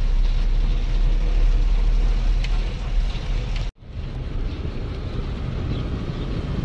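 Steady low rumble of a truck's engine and road noise heard inside the moving cab. It drops out for an instant about three and a half seconds in, then carries on.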